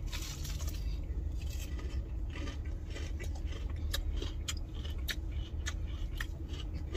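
Irregular crisp crackles and scrapes from crunchy fried chicken being cut with a knife and fork and eaten, over a steady low hum.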